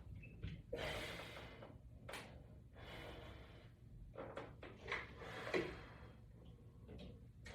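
A man's hard breathing while exercising against a resistance band: a long exhale about a second in, a short one just after two seconds, and more breaths around five seconds in.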